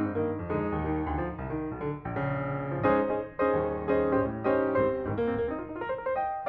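Background instrumental music led by piano, a busy, continuous run of notes.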